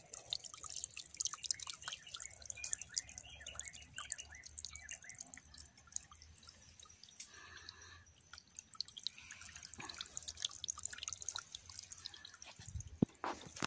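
Clear spring water trickling and dripping over rocks into a shallow stream, a dense run of small drips and plops. A single louder knock near the end.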